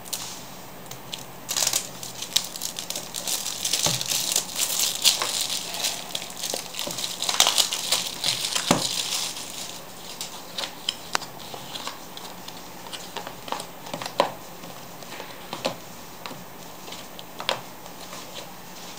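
Cigarette carton packaging being unwrapped by hand: loud crinkling and crumpling for about eight seconds. Then scattered light taps and clicks as the cardboard carton is opened and the packs are handled.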